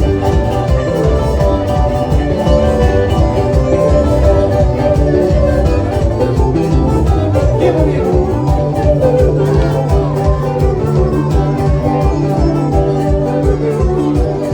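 Live band music with a steady, driving dance beat: drums, bass and guitar, with some singing.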